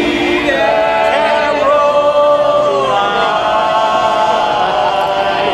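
Men's barbershop group singing a cappella in four-part close harmony, holding long sustained chords. The chord shifts about a second in and again about three seconds in, then is held to the finish of the song.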